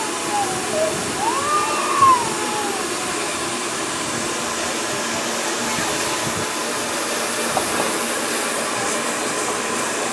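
Hunslet Austerity 0-6-0ST saddle-tank steam locomotive standing with steam hissing steadily from beneath it.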